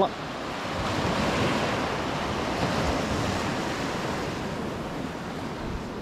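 Ocean surf washing up a sandy beach: a steady rush of breaking waves that swells about a second in and eases toward the end, with wind on the microphone.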